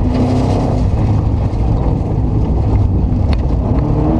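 Subaru Impreza rally car's flat-four engine heard from inside the cockpit, driving hard over a gravel stage with a heavy rumble of road and tyre noise. The engine note dips after about the first second and climbs steadily near the end as the car accelerates, with a couple of sharp clicks in between.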